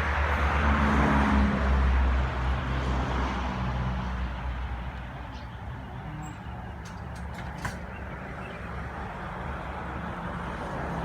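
A motor vehicle's low engine rumble grows loudest in the first couple of seconds, then eases to a steadier, quieter hum. A few faint clicks come about seven seconds in.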